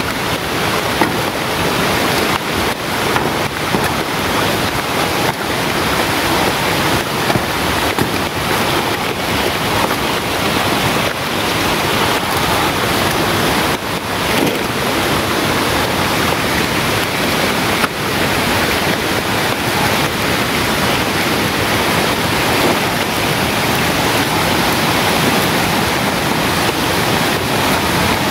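Steady rushing noise, loud and even throughout, with a few brief rustles as banana leaves are handled.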